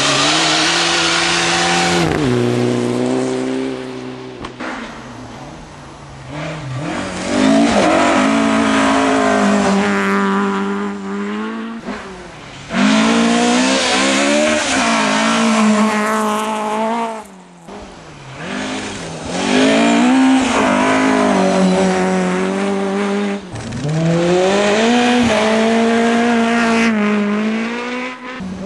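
Rally car engines revving hard, the engine note climbing and then dropping sharply at each gear change. Several cars go by one after another, each rising out of a quieter gap.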